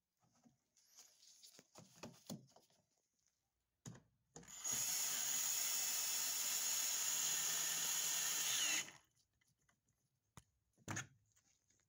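Cordless drill driving a screw through the dryer receptacle's mounting slot into the wall, running steadily for about four seconds and then stopping. Handling clicks and rustling come before it and two short knocks after.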